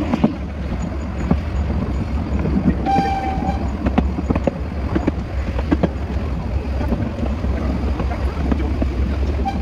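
Narrow-gauge train running with a steady low drone and scattered clicks, and one short whistle toot about three seconds in.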